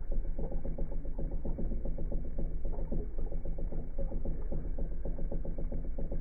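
A small motor's steady hum with a fast, rattling buzz on top.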